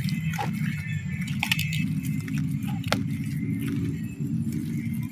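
Gloved hands digging through soil and dry roots to pull out taro corms: scattered rustling, crackling and snapping of roots, over a steady low rumble.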